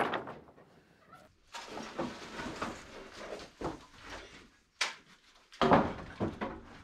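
Loose wooden boards and barn debris clattering and knocking as they are tossed and pulled about, with scraping and rustling in between. A loud clatter at the start dies away, a sharp knock comes near five seconds in, and another loud clatter follows about half a second later.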